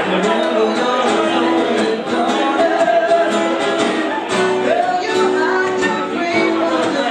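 A live band playing a song, with guitar and held melodic notes.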